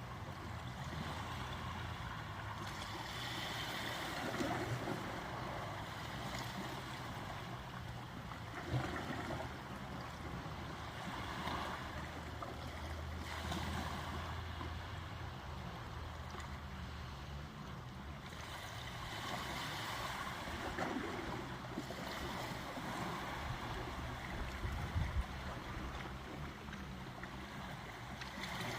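Ocean waves washing in, swelling and easing every few seconds over a steady low rumble.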